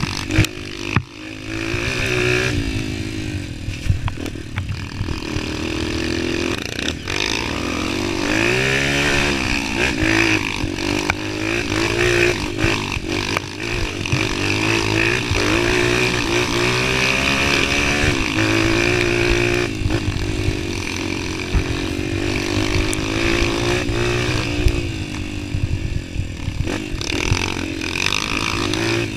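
Honda CRF230 dirt bike's single-cylinder four-stroke engine running under constantly changing throttle, its revs rising and falling, with scattered knocks and clatter as the bike jolts over a rough dirt trail.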